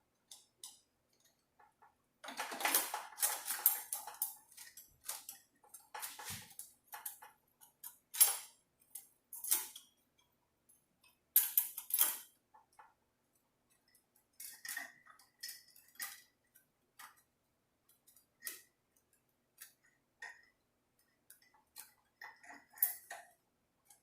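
Steel and friction clutch plates clinking and tapping against each other and the clutch drum as they are fitted and lined up on their splines in a 46RE transmission's overdrive clutch pack. Scattered metallic clicks with quiet gaps, and a denser rattle about two to four seconds in.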